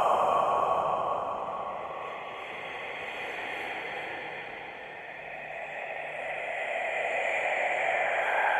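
Scary whispering sound effect: a breathy, hissing whisper texture without clear words, fading down through the middle and swelling back up near the end.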